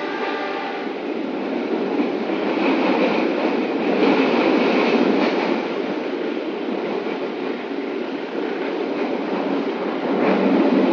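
Passenger train carriage running at speed, heard from inside: a steady rumble and rattle of wheels on the rails, swelling louder for a few seconds in the middle and again near the end.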